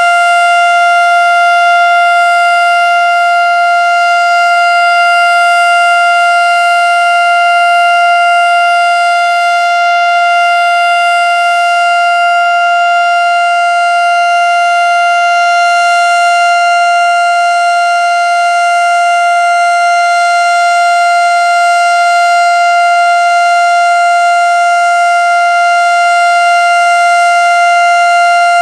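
Federal Signal STH-10A outdoor warning siren sounding the steady alert tone of a test cycle. It holds one unchanging pitch at full volume, swelling and easing slightly in loudness.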